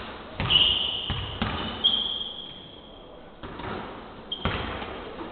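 Basketballs bouncing on a hardwood gym floor, about six irregular bounces, with high squeaks of sneakers on the floor. The bounces ring briefly in the large hall.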